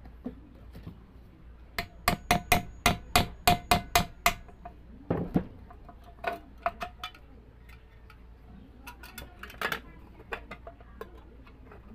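Hammer striking a nail to punch a hole through a thin metal tin can: a quick run of about a dozen blows, each with a brief tinny ring, then a few scattered lighter knocks.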